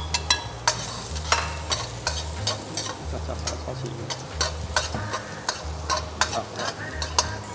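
Minced garlic sizzling in hot oil in a pan, stirred with a spatula that clicks and scrapes against the pan at irregular moments. This is the garlic being fried until fragrant at the start of a stir-fry.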